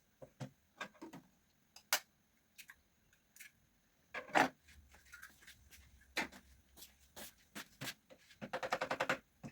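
Kitchen utensils and dishes being handled: scattered knocks and clicks, then near the end a fast, even clinking of about six strokes a second with a ringing note, a utensil striking a dish.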